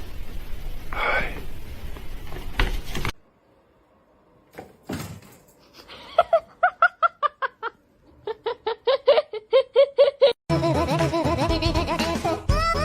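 A person laughing in two runs of quick, rhythmic bursts, after a few seconds of noisy rustling. Music starts near the end.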